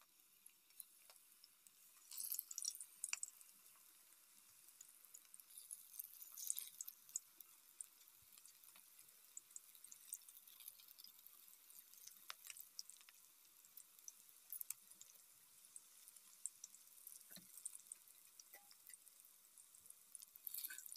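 Drumstick-flower pakora batter frying in hot oil in an aluminium kadai: a faint sizzle with scattered crackles, and louder bursts of crackling about two and six seconds in as more batter goes into the oil.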